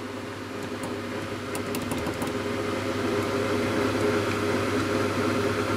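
A steady machine hum, a droning tone with several pitches stacked over a hiss, slowly growing a little louder. A few faint clicks come about two seconds in.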